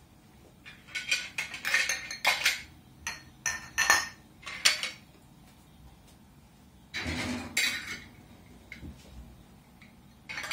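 Metal jar lids clinking and clattering as they are set down one after another on a towel among glass jars, with a longer, noisier clatter about seven seconds in.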